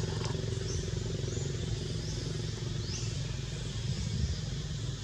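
A steady low engine-like hum, with short high rising chirps repeating about once a second.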